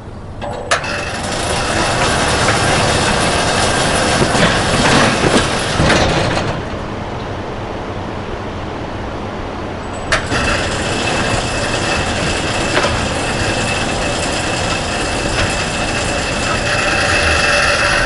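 High-speed fabric roll-up door (Speedor Super) working: a sharp click about a second in, then several seconds of motor and rolling-curtain noise. After a quieter stretch, a second click about ten seconds in starts another long run with a steady high whine that stops at the end.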